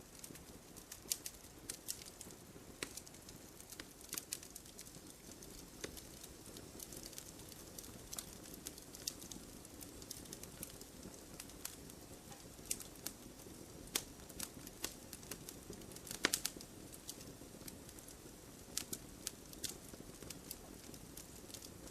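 Wood fire burning in a fireplace, crackling: irregular sharp pops and snaps over a soft steady hiss.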